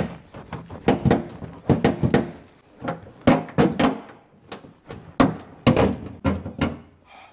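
A dozen or more knocks and thumps as a heavy 2015 Mustang power seat is wrestled loose and bumped about inside a classic car's cabin.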